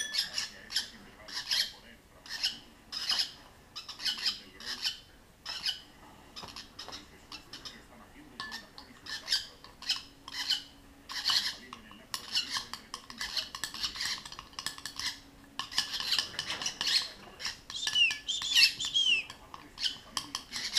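A spoon stirs and scrapes hand-rearing formula in a small glass cup, clinking against the glass again and again. Young lovebirds squawk and chirp, with a quick run of short up-and-down calls near the end.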